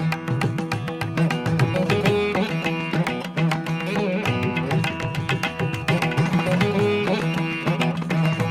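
Instrumental music in an Indian classical style: plucked strings over a held drone, with quick hand-drum strokes throughout.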